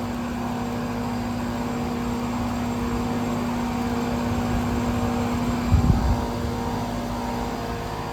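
Air-conditioner condensing unit with a Copeland scroll compressor running: a steady hum with the fan's rushing drone, the compressor's steady tone dropping away about seven seconds in. A brief low bump just before six seconds.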